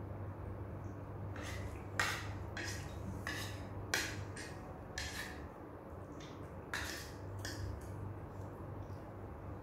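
Spoon and fork clinking and scraping against a plate while scooping up noodles: a dozen or so irregular clicks, the two sharpest about two and four seconds in, over a low steady hum.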